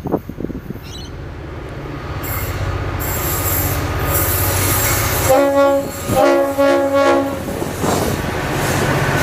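V/Line N-class diesel locomotive approaching, its engine drone growing louder, with hissing wheel and rail noise. It sounds its multi-tone horn in two blasts of about a second each, a little over halfway through.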